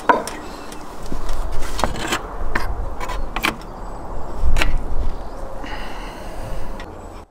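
Metal rod and hook clattering, knocking and scraping against the brick rim of a tandoor as a whole lamb carcass is hauled up out of the pit. There are a dozen or so sharp clicks and knocks over a low rumble, with the loudest knock about four and a half seconds in.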